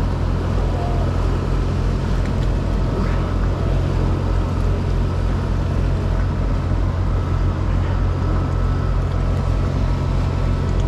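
Narrowboat engine running steadily with an even low throb.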